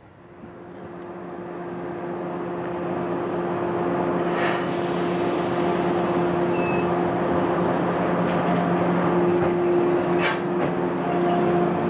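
A JR West 415 series 800-subseries electric train approaching and running past, its running noise growing over the first four seconds and then holding, with a steady low hum. Two sharp clicks come about four and ten seconds in.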